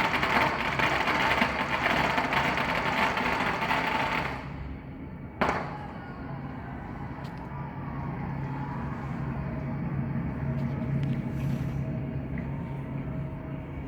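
A string of firecrackers going off in a rapid, dense crackle for about four seconds, then stopping abruptly, with one more single bang about a second later. A quieter steady hum remains afterwards.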